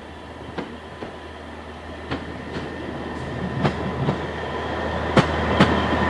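Drewry railcar, a small two-axle former pier tramcar, approaching and passing close by. Its wheels click over the rail joints in pairs that grow louder as it nears, over a steady low engine drone that also rises, with the loudest pair of clicks near the end.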